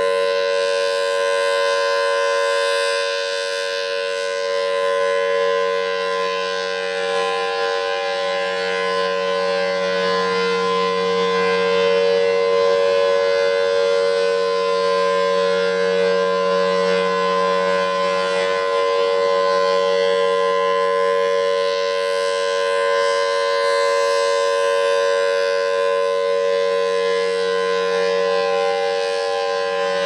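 Federal Signal Thunderbolt 1003 rotating siren sounding a steady alert tone, its loudness swelling and dipping slightly as the horn turns.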